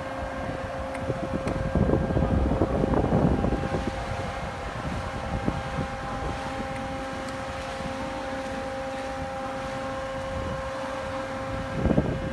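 Hydraulic power unit of a tank-container lifting rig, its electric motor and pump running with a steady whine while the LNG tank container is raised and tilted. Louder low rumbles come briefly about two seconds in and again near the end.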